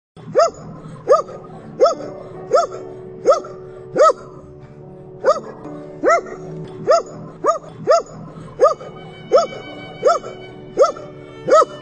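A dog barking repeatedly at an even pace, about sixteen short barks roughly three quarters of a second apart with a brief pause about halfway through, each bark rising and falling in pitch, over quiet background music.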